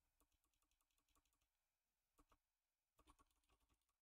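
Near silence with faint computer keyboard key presses: scattered single clicks, a pair about two seconds in, and a quick run of three or four near the end.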